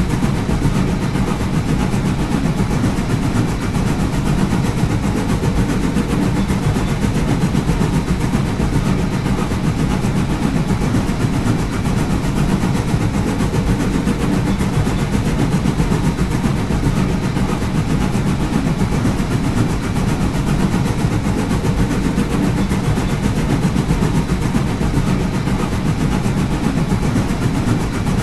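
Steam locomotive running: a steady, unbroken low rumble with a fast, dense clatter over it.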